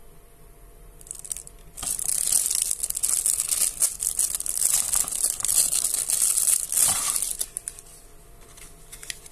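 Thin clear plastic wrapper crinkling loudly as it is pulled off a TV remote control. It starts about two seconds in and dies down after about five seconds.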